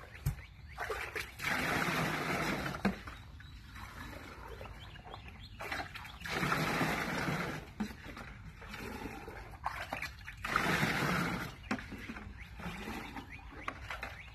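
Rainwater poured from a cut-open plastic jug into a plastic ice chest: three pours of about two seconds each, a few seconds apart, with quieter scooping from a bucket between them.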